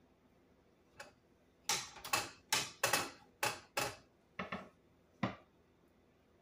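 A metal muffin tin knocking and clattering in a quick, irregular run of about a dozen sharp taps, loudest in the middle, as pizza dough is pressed into its cups.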